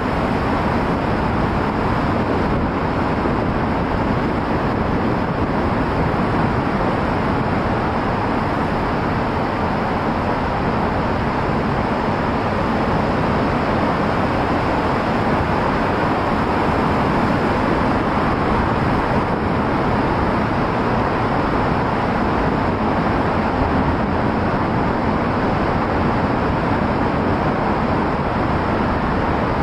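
Steady road noise of a car driving: an even rush of tyre and traffic noise with no change in level.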